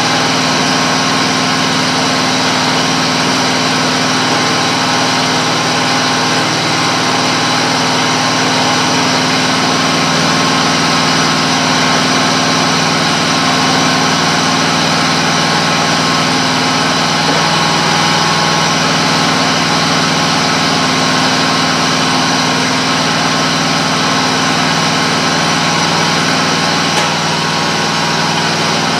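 Zero-turn riding mower's engine idling steadily after a cold start.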